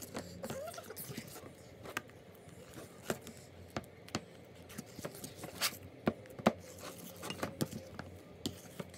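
Plastic spoon stirring thick glue slime in a plastic bowl as spray starch is mixed in: irregular clicks and knocks of the spoon against the bowl, with scraping.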